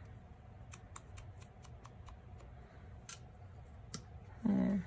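Light, irregular tapping clicks of a foam sponge dauber being dabbed onto an ink pad and the edges of a paper flower.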